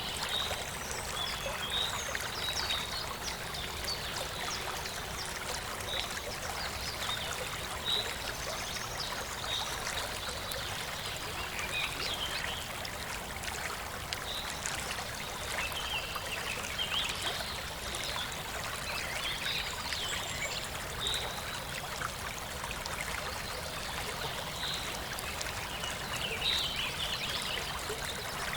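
Steady rush of a gently flowing river, with a European robin singing short, high warbling phrases every second or two. Faint crackles from a campfire ticks through it.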